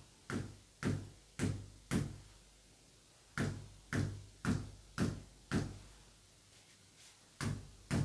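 Hollow knocks struck about twice a second in three runs of four, five and two, each ringing briefly with a low tone.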